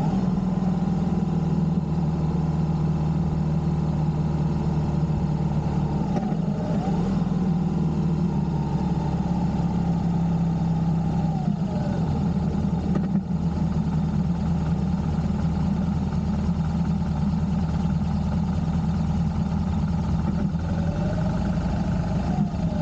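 Motorcycle engine running steadily while riding along the road, with a few brief glides in pitch at about a quarter, half and near the end of the stretch.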